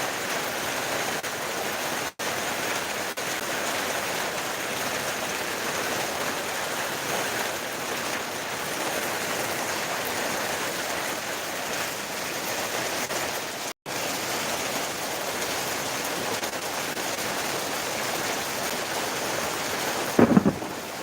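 Steady rainfall, an even continuous hiss that cuts out for an instant twice, about 2 and 14 seconds in. Near the end comes a brief, louder low thump.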